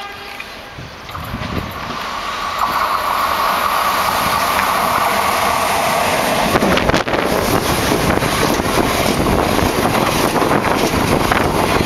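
Talgo passenger train approaching and running past close by. The rush of wheels on rail and moving air builds over the first couple of seconds, then holds loud and steady as the low coaches go by.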